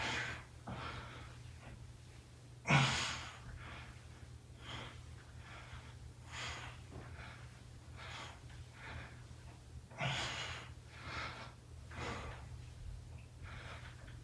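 A man breathing hard with short, forceful exhales about once a second while doing reverse crunches, the heavy breathing of exertion. Two exhales, around three seconds in and around ten seconds in, are louder than the rest. A steady low hum runs underneath.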